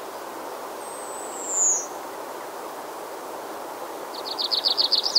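Birdsong over a steady outdoor background hiss. A single high, falling whistle comes about a second and a half in. Near the end a rapid trill of short high notes starts, about ten a second.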